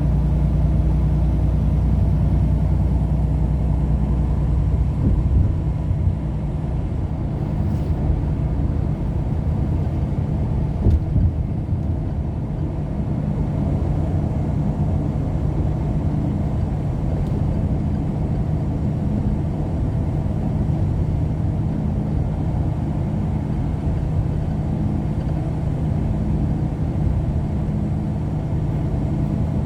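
Steady engine hum and road rumble of a vehicle cruising at highway speed, heard from inside the cab, with a couple of light bumps about five and eleven seconds in.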